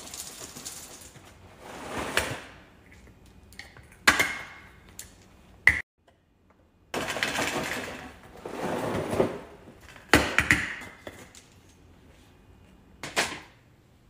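Dry cereal poured from its box into a clear plastic cereal dispenser, rattling and rustling in several separate pours. A few sharp clicks come between the pours.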